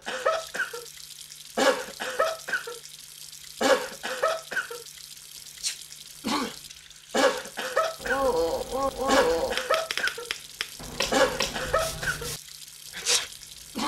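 Short coughs from different people, one every second or two. From about eight seconds in, a faucet runs into a sink for around four seconds, with more coughs over it.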